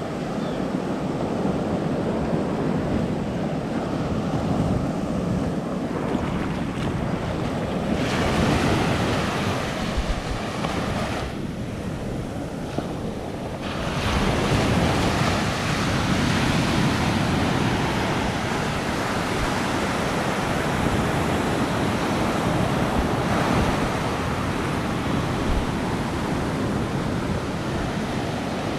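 Small waves breaking and washing up a sandy beach at the water's edge: a continuous rush of surf and foam that swells louder a couple of times.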